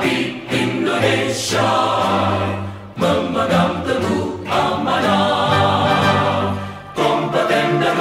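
Background music of a choir singing held notes in phrases, with short breaks about three and seven seconds in.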